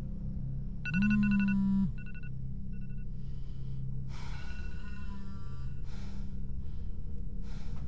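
Horror-film sound design: a low, steady drone with a brief, rapidly struck ringing tone about a second in and fainter short echoes of it after. Hazier swelling textures follow from about four seconds.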